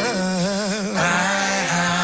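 Worship song with singers over a band: voices with a wavering vibrato above a steady held low note.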